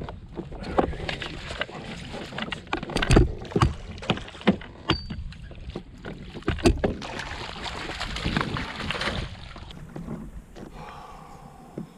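Knocks and clatter of gear being handled in a fishing kayak, over a steady wash of water and wind noise. There are several sharp knocks, the loudest about three seconds in and again between six and seven seconds in. It turns quieter near the end.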